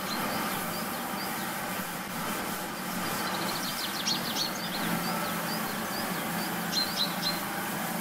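Power hose spraying water down the milking parlour floor and clusters: a steady hiss with a low machine hum underneath. Birds chirp now and then, most often around the middle and near the end.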